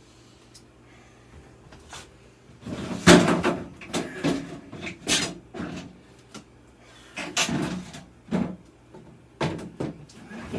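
Refrigerator fittings being handled: an irregular run of knocks and clunks that starts about two and a half seconds in, the loudest just after it begins.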